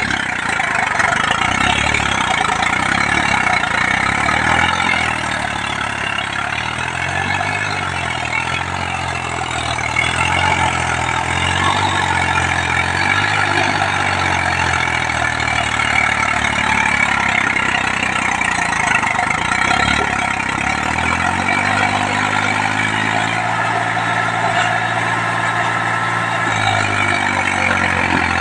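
Eicher tractor's diesel engine working hard under load while bogged in deep mud with a loaded trolley, its speed rising and falling. About twenty seconds in it revs up and holds higher.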